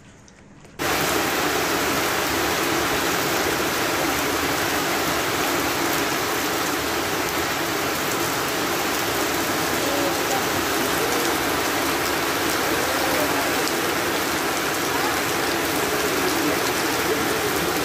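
Rain pouring down steadily, cutting in abruptly about a second in.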